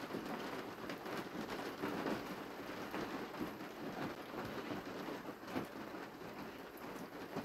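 Steady rain pattering, with many small drop ticks close by.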